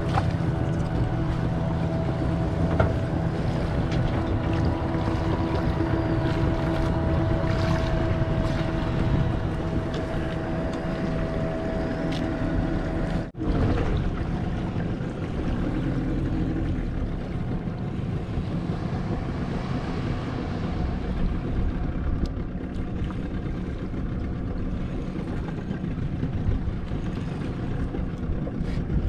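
Small fishing boat's engine running steadily, mixed with wind and water noise. A brief dropout about halfway through, after which the engine note is fainter.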